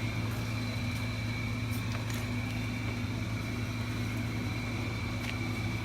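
Steady low electrical hum with a faint high whine and hiss, typical of a powered-on tube CB radio set idling on receive.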